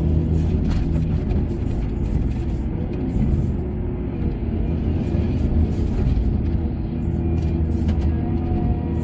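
Heavy earthmoving machinery engine running steadily, a continuous low rumble, with background music over it.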